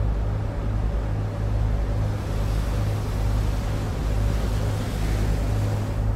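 Boat engine running steadily under way, a low, even drone heard inside the passenger cabin, with a steady rushing hiss over it.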